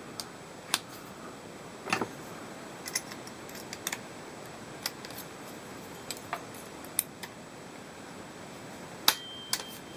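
Scattered clicks and light knocks of a Parkside cordless oscillating multi-tool and its accessories being handled, as a blade is fitted into the tool's quick-release clamp. The two strongest come about two seconds in and near the end.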